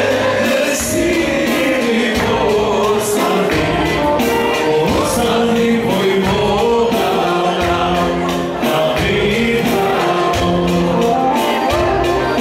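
A Macedonian folk song played live, with a singer over instruments and a steady beat.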